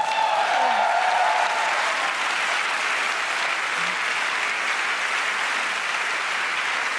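Large audience applauding steadily, with a faint held tone over the clapping during the first two seconds.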